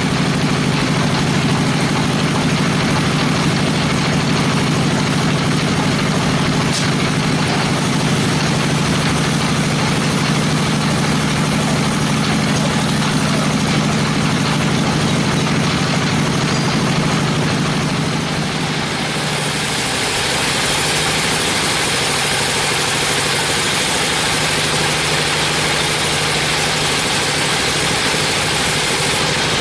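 A 42-inch band sawmill running with a steady low hum. About two-thirds of the way through, the sound turns brighter and hissier as the band blade saws into a teak log.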